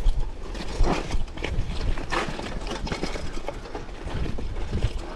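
Mountain bike clattering over a rough, rocky trail, with irregular knocks and rattles from the bike under a steady low rumble.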